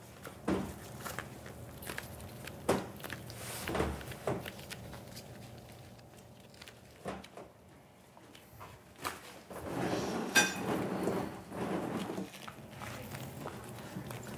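Gloved hands wrapping and pressing a sheet of warm hard candy around a thick candy log on a work table: scattered soft knocks and thumps with rubbing, and a louder stretch of scraping and rubbing about ten seconds in.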